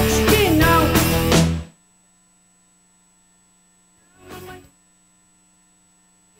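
Background music that cuts off suddenly about a second and a half in, followed by near silence broken by one brief faint sound about four seconds in.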